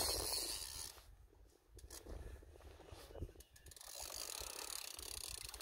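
Fishing reel being cranked in while a paddlefish is fought, its gears and drag ticking.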